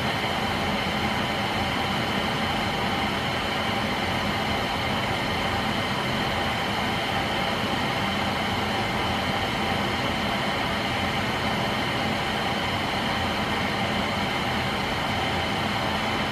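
NuTone Verandah II Deluxe 52-inch ceiling fan running on high: a steady rush of moving air with a faint, even hum.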